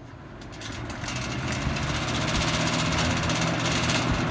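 Late-1990s Lasko box fan with one bent blade running: a steady motor hum under rushing air. It grows louder over the first second and a half, then holds steady.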